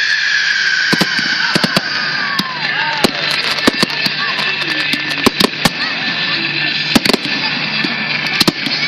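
Aerial fireworks bursting in quick succession during a display finale: many sharp bangs over a dense crackling hiss, with whistling tones gliding downward.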